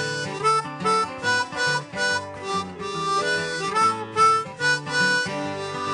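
Harmonica solo over guitar backing, a run of short notes changing pitch in an instrumental break between verses of a country-style song.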